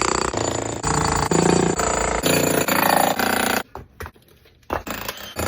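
Jackhammer breaking up a concrete slab: loud rapid hammering in short runs, dropping away about three and a half seconds in and starting up again about a second later.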